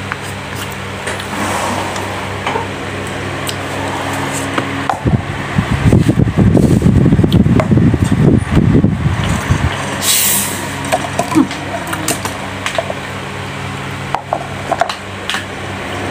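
A plastic fork and knife clicking and scraping against fried chicken and a disposable takeout plate, small ticks scattered throughout, over a steady background hum. A louder low rumble swells for about five seconds in the middle, followed by a short high crackle.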